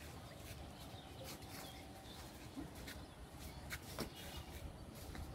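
Faint outdoor background with a few light clicks and a faint animal call in the distance.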